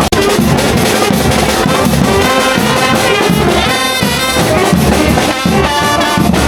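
Brass band playing, with trumpets and trombones carrying the tune.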